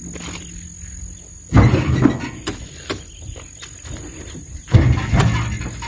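Oil palm fresh fruit bunches thrown by hand into a steel dump-truck bed, landing with two heavy thuds about three seconds apart. A steady insect buzz runs underneath.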